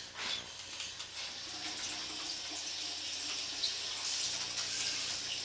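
Steady rush of running water, a continuous even hiss.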